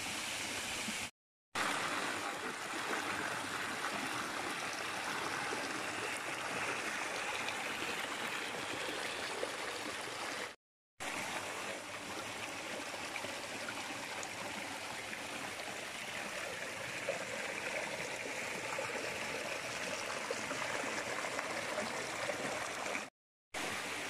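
A small stream and trickling waterfall running over rocks: a steady rush of water that cuts out to silence briefly three times.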